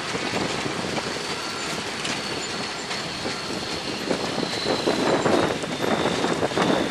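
Loaded semi dump truck pulling slowly across a muddy gravel yard, heavy running noise with crackling and crunching that grows louder after about four seconds, and a thin high squeal held throughout.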